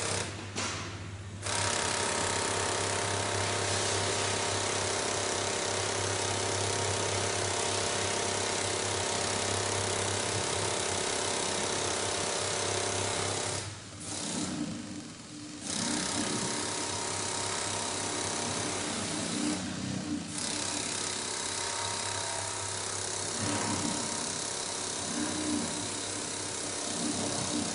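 Heavy-duty mattress flanging machine's high-speed double-needle sewing head running steadily as a thick mattress panel is fed through. It stops briefly a few times, once near the start, once for about two seconds midway and once shortly after.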